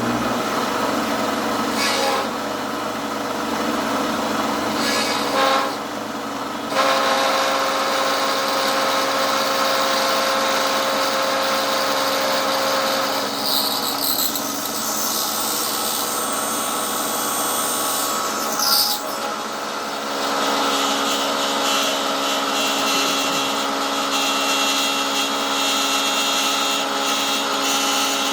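Metalworking machine tool running with a cutter taking metal off a part: a steady motor whine over cutting hiss. There are brief louder scrapes about 2, 5 and 18 seconds in, and the pitch of the whine shifts a few times.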